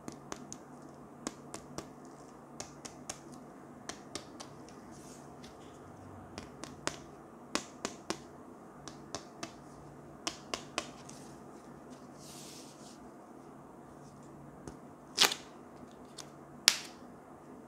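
A reflective slap band (snap bracelet) being flexed and handled, its spring-steel strip giving off scattered small clicks and ticks. There is a short rustle about twelve seconds in, then two sharp, much louder snaps near the end as the band begins to curl up on itself.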